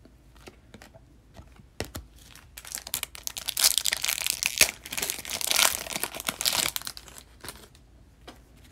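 Foil wrapper of a hockey card pack being torn open and crinkled: a dense burst of crackling for about four seconds in the middle, with a few light clicks of cards being handled before and after.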